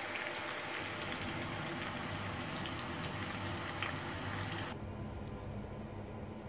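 Sliced onion sizzling and crackling as it fries in hot oil in a frying pan. Near the end the sizzle cuts off suddenly, leaving quieter room tone with a low hum.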